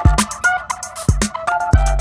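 Background music with a steady drum-machine beat: low kick thumps and sharp ticks under a line of short melodic notes.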